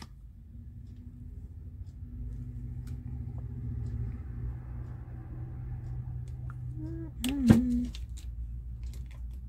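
A low, steady rumble that builds up over the first couple of seconds and then holds, with one brief loud sound about seven and a half seconds in whose pitch bends up and down.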